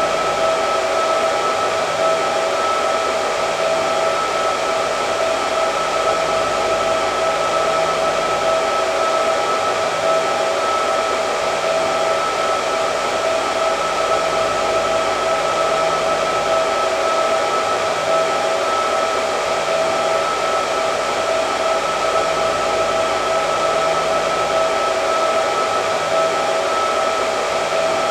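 Hair dryer running continuously: a steady rush of air with a constant motor whine.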